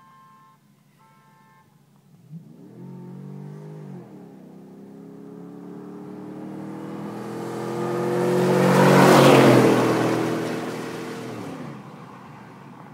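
2008 GMC Sierra 1500 pickup's V8 accelerating toward and past the listener. The engine pitch climbs, drops once about four seconds in as it shifts up, then climbs again. It is loudest as the truck passes at about nine seconds and fades as it pulls away.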